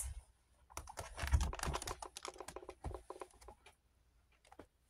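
Quick run of light clicks and rustles as a fleece liner is smoothed and tucked into a wire guinea pig cage, lasting about three seconds before it goes almost quiet, with a few faint clicks near the end.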